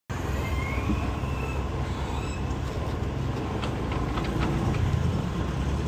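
Steady low engine and road rumble from riding a motorcycle in slow city traffic, with a few faint clicks about halfway through.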